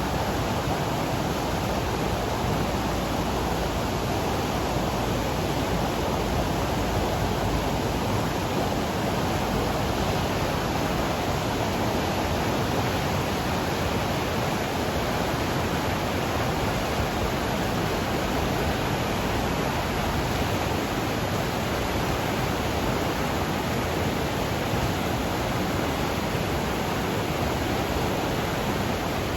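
Flooded mountain river rushing with runoff water: a steady, even roar of fast-flowing water.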